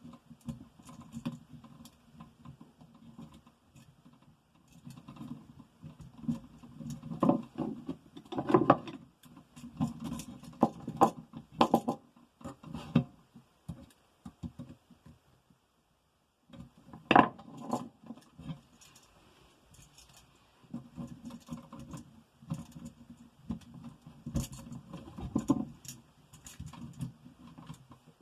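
Irregular clicks, taps and rustling from hands working electrical wires and an outlet into a tight wall box. The sounds stop briefly about halfway through, followed by a sharp knock.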